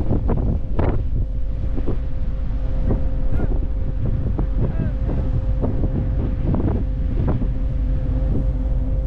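Wind buffeting the microphone over a truck engine idling steadily with a constant hum, and scattered light knocks throughout.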